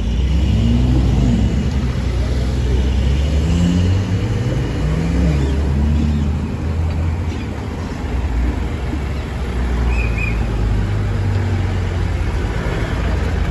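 Porsche cars, a 911 and a Cayenne among them, pulling away slowly one after another: a steady low engine rumble with several short revs that rise and fall in the first half.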